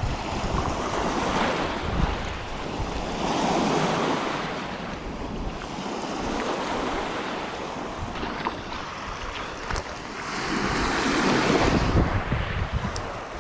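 Lake waves washing onto the shore, a noisy rush that swells and eases every few seconds and is loudest near the end, with wind buffeting the microphone.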